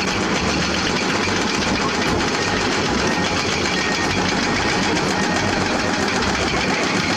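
A motor running with a fast, steady rattle.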